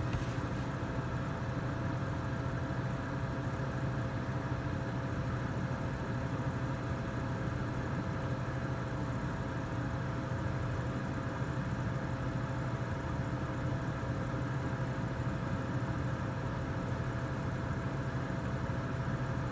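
Furnace blower fan running steadily, a constant hum with a thin steady whine over it, blowing cool air because the furnace has stopped heating.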